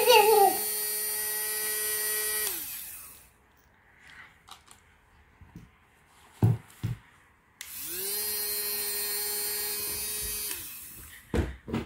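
Small electric motor of a battery-powered machine-gun bubble toy whirring with a steady whine in two runs of about three seconds each: the first winds down about three seconds in, the second spins up a little later and winds down near the end. A few soft thumps fall in the gap and just before the end.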